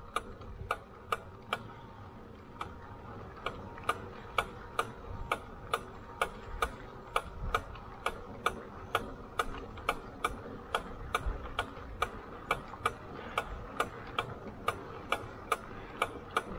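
Delfast electric bike riding over a gravel trail: a low rumble from the tyres, with a sharp, regular tick about two to three times a second.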